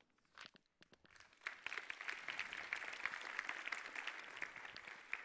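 Audience applauding: a few scattered claps, then many hands clapping together from about a second in.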